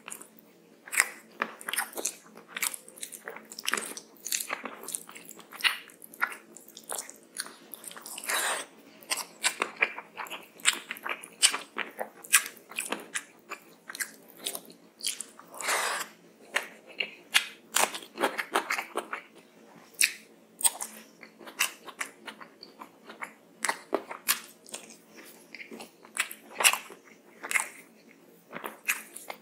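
Close-miked mouth sounds of a person eating rice and curry by hand: irregular chewing, crunching and wet smacking clicks, with a few longer wet, squishy sounds among them.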